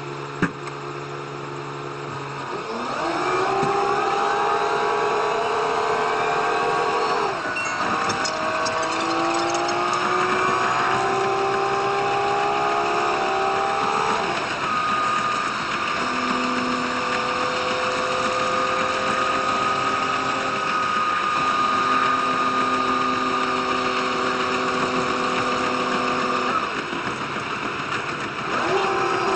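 Diesel train's engine and drive under way. The pitch climbs through two long stretches in the first half, each ending in a sudden drop, then holds steady. It drops and begins climbing again near the end, the pattern of a diesel railcar gathering speed and shifting.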